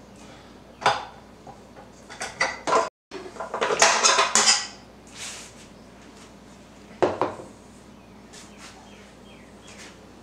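Kitchen handling sounds: dishes and utensils clinking and knocking on the counter, with a rustling, scraping stretch about four seconds in. A single knock about seven seconds in, as a glass flour canister is set down on the countertop.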